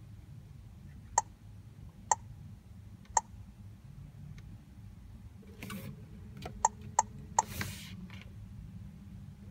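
A sat-nav touchscreen giving short, sharp key-press beeps as it is tapped: three about a second apart, then three more in quick succession a few seconds later. A steady low hum runs underneath.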